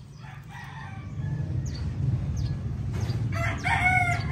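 A rooster crowing: one long crow that starts about three seconds in and is still going at the end, over a steady low rumble, with fainter short calls before it.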